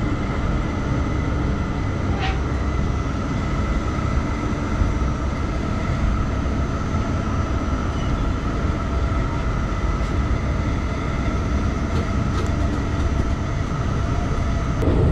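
Indian express train's ICF passenger coaches rolling slowly out of a station, a steady running noise with a few faint steady high tones over it.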